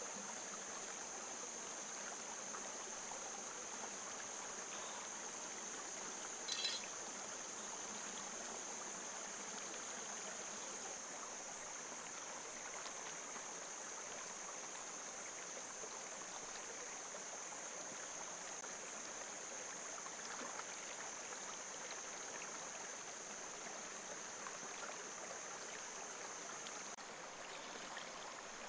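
Shallow rocky stream running steadily, with a steady high-pitched tone over the water throughout. A brief sharp sound stands out about six and a half seconds in.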